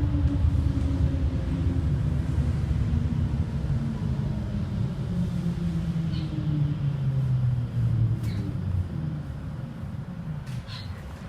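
City bus heard from on board, its low rumble carrying a whine that slides steadily down in pitch as the bus slows, the sound fading toward the end. A few short clicks or rattles come near the end.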